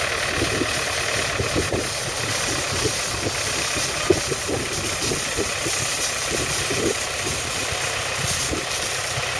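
Tractor engine running steadily at low revs while driving a tractor-mounted boom spray pump, a continuous mechanical noise with a rough, uneven grain.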